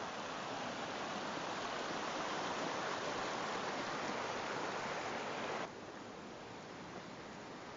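Rushing water: a steady rush that starts abruptly and cuts off abruptly about three quarters of the way through, leaving a fainter hiss.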